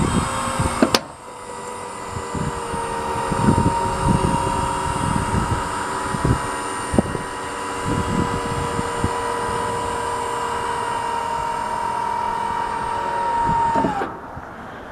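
Maxon Turn Away lift gate's hydraulic pump motor running with a steady whine while the platform is raised, with a few clunks from the platform and its linkage. Near the end the whine sags briefly in pitch and stops as the lift finishes.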